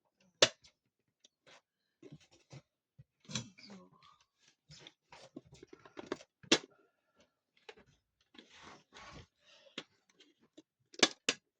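Irregular sharp clicks, taps and rustles of a Metamec wall clock's case and parts being handled and fitted by hand, with a loud click about half a second in, another in the middle and two close together near the end.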